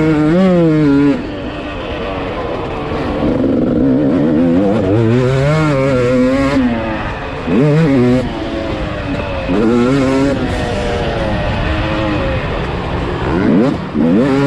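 Two-stroke motocross bike engine, heard onboard, revving up and down over and over as the throttle is opened and shut through the gears. Its pitch climbs sharply a few times, and it goes quieter for moments when the throttle is rolled off: about a second in, around the middle, and near the end.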